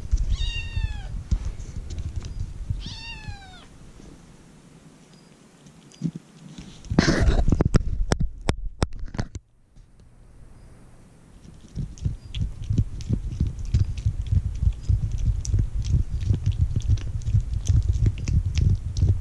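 A kitten meows twice early on, each call short and falling in pitch. A loud rustling burst comes about seven seconds in. From about twelve seconds there is a rapid run of small wet clicks and smacks as the kitten licks a paste treat from a tube held in the hand.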